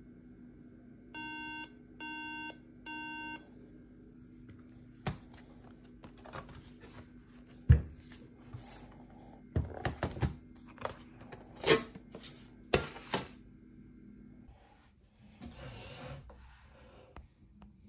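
MacBook Air sounding three evenly spaced beeps, the Mac's three-beep code for a RAM fault, over a steady low hum that stops about 14 seconds in. After the beeps come a run of sharp clicks and knocks, the loudest about 8 seconds in, and a brief hiss near the end.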